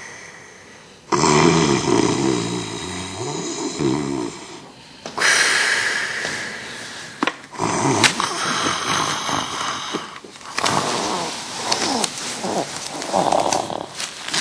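A person snoring loudly: a run of long snores, the biggest starting about a second in, with short gaps between them.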